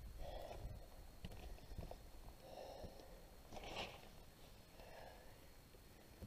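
Faint breathing of a climber scrambling down rock: four breaths a second or so apart, with a few small clicks and scrapes of the hand against the rock.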